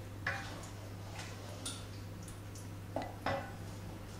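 A spoon stirring a thick curry in a non-stick pan: a few soft, scattered taps and scrapes against the pan, over a low steady hum.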